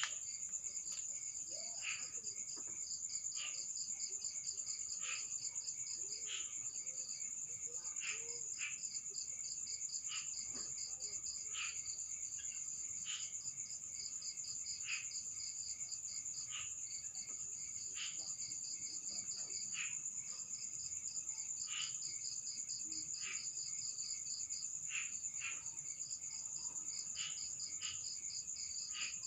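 Insects calling: a steady high-pitched trilling chorus, with a shorter chirp repeating about once a second.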